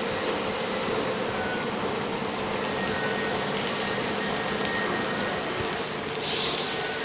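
MIG welding machine running with a steady, dense hiss, with a short louder hiss about six seconds in.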